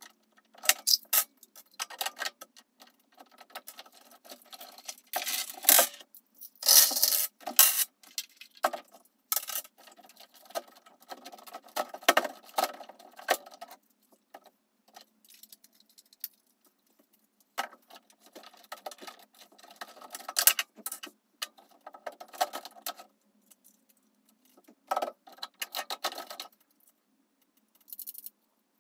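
Plastic Lego bricks being pulled apart and handled: irregular clicks, snaps and rattles in bursts, with short pauses between them.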